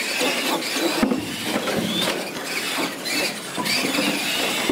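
Brushed electric motors and gearboxes of RC monster trucks whining as they race, the pitch rising and falling repeatedly as the drivers work the throttle.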